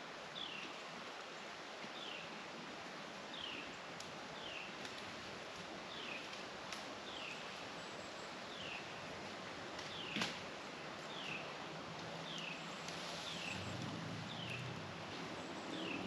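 A bird repeating a short, high, falling chirp about once a second. There is one sharp click about ten seconds in, and a low engine hum comes up over the last few seconds.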